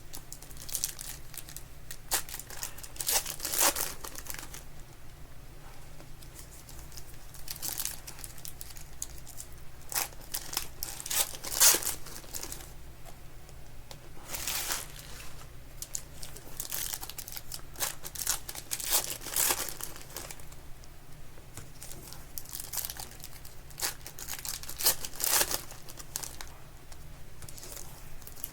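Foil wrappers of Legacy football card packs being torn open and crinkled by hand, with cards handled in between. The crinkling comes and goes every few seconds and is loudest about twelve seconds in, over a low steady hum.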